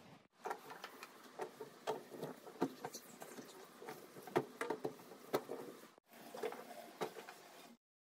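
A cloth wiping and scrubbing a stainless-steel gas stovetop to clear the cleaner off it: irregular rubbing strokes with small knocks. It breaks off briefly about six seconds in and stops shortly before the end.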